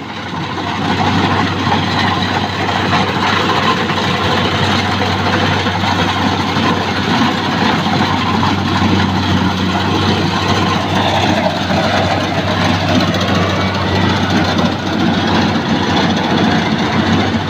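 Rice combine harvester running: a steady, loud engine drone with a constant low hum under dense mechanical noise, swelling over the first second and then holding.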